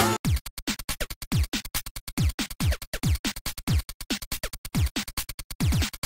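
Electronic background music: a choppy drum-machine beat with repeated deep bass-drum hits that fall in pitch, and stuttering, scratch-like cuts.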